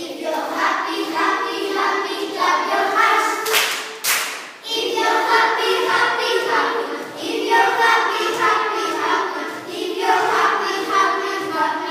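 A group of children singing a song together, with a short loud rush of noise about three and a half seconds in.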